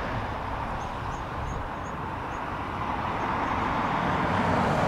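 Jet airliner on final approach: its engines make a broad, even rush that grows steadily louder as the aircraft nears.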